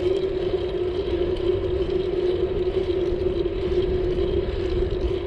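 Riding noise from a bicycle, picked up by a handlebar-mounted GoPro wrapped in a foam wind muffler. It holds a low wind and road rumble with a steady hum under it.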